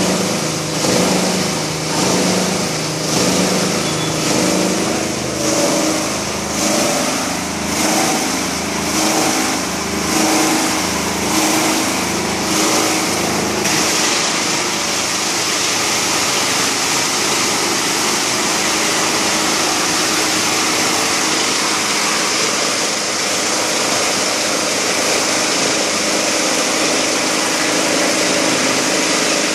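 Plastic crusher (granulator) driven by a 37 kW electric motor, running. For about the first half the sound pulses roughly once a second, then it settles into an even, steady machine noise.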